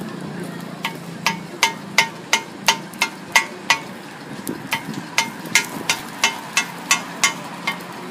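Metal spatula chopping rolled crepes into pieces against a steel griddle: a quick run of sharp, ringing metallic clacks, about three a second, with a short break about halfway.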